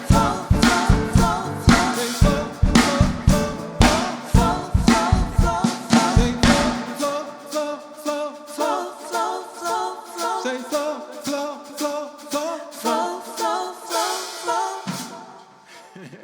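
Live worship band and singers performing a song with a drum kit keeping a steady beat; about seven seconds in the drums and bass stop and the voices carry on over light accompaniment, fading out near the end.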